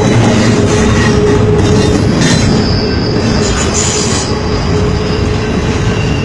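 A train's loaded flatcars rolling past close by, a loud steady rumble of wheels on rail with a thin, steady wheel squeal over it.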